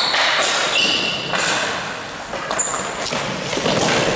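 Ball hockey play in an indoor rink: several short, high squeaks, typical of sneakers on the playing floor, over a running clatter of sticks, ball and footsteps that echoes in the hall.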